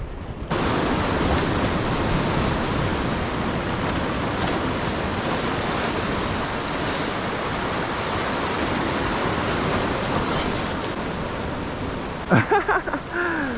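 Steady rushing noise of wind and sea water, starting abruptly about half a second in. A man's voice calls out near the end.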